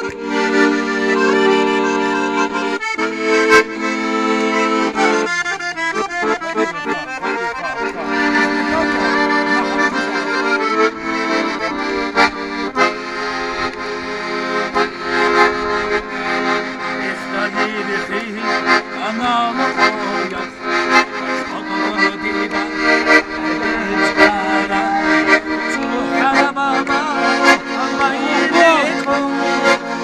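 Accordion playing a traditional folk tune in sustained chords and changing melody lines, with scattered sharp clicks through it.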